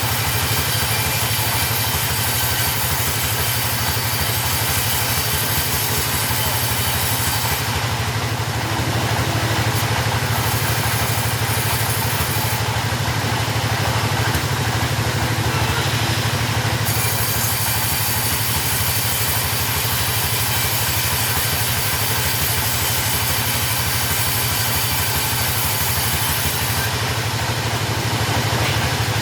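Two-stroke chainsaw engine running steadily, without rising or falling.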